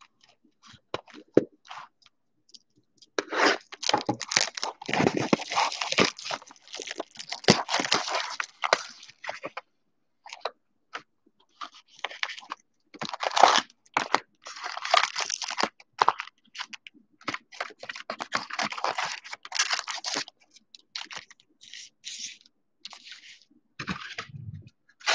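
Foil trading-card pack wrappers crinkling and rustling as the packs are pulled out of a cardboard hobby box and laid in stacks, with small taps and scrapes of packs and cardboard. It comes in spells, busiest between about three and ten seconds in and again from about twelve to twenty seconds.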